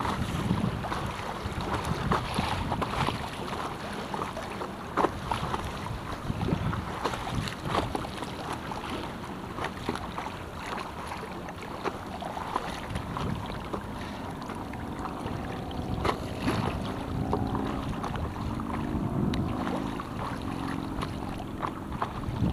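Paddle strokes splashing and dripping, and river chop lapping against a stand-up paddleboard as it moves downstream, over a steady rush of water and some wind on the microphone.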